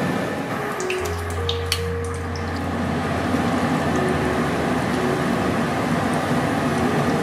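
Pumpkin-flower koftas in gram-flour batter deep-frying in hot oil in a steel kadai: a steady sizzle and bubbling, with a few sharp clicks about one to two seconds in.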